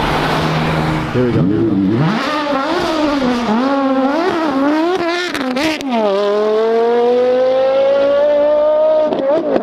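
Porsche Carrera GT's V10 engine revving hard as it pulls away: the pitch swings up and down for a few seconds, then climbs steadily in one long pull, with a gear change just before the end.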